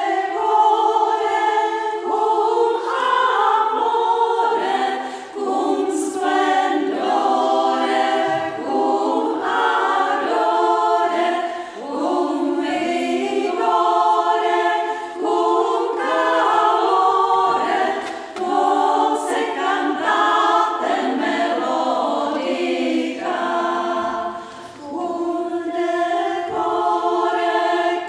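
Women's choir singing a cappella in three voices, a sixteenth-century Renaissance rondo in Latin, in sustained phrases with brief breaks between them.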